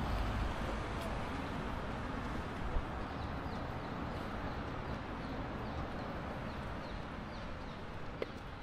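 Steady outdoor city ambience: a low hum of distant traffic, with faint short high chirps through the middle and a single click near the end.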